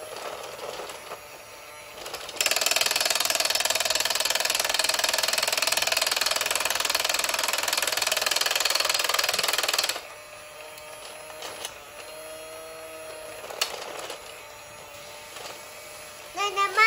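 Battery-powered toy fishing game running: its small motor whirring and the plastic ponds rattling as they turn. It starts suddenly about two seconds in and cuts off about ten seconds in, and a child's voice is heard at the very end.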